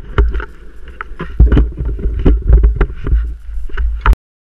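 Strong blizzard wind buffeting the microphone in irregular gusts, with sharp crackles throughout. The sound cuts off suddenly near the end.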